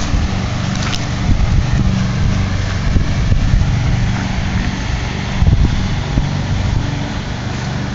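A steady engine hum, with gusts of wind buffeting the microphone.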